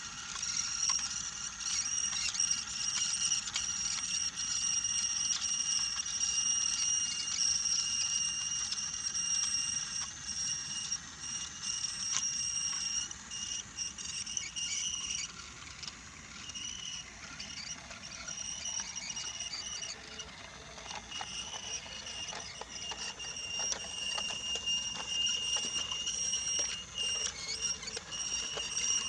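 Battery-powered Brio toy locomotive running on wooden track: its small electric motor and gearbox give a steady high whine, with many small clicks from the wheels on the track joints. The whine fades out for a few seconds around the middle, then returns.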